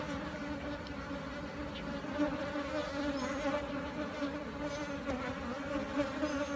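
Many honey bees buzzing around an opened hive and its lifted brood frame: a steady hum holding one low pitch.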